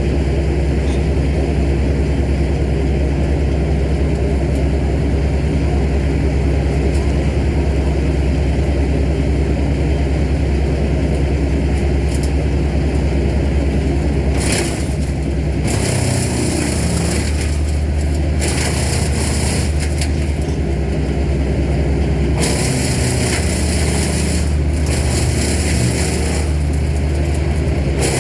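Engine of a Vermeer tree-service machine running steadily at speed. About halfway in, loud crunching, hissy bursts begin and come and go for several seconds at a time, with the engine note wavering as the machine takes wood under load.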